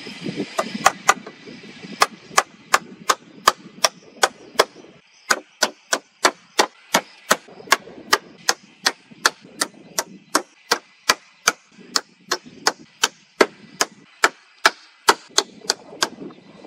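Rapid, evenly spaced chopping strikes, about three a second, each a sharp knock.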